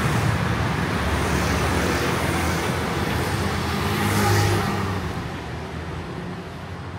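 Street traffic, mainly motor scooters riding past. Their engines and tyres hum steadily, one passes close and loudest about four seconds in, and then the traffic noise dies down.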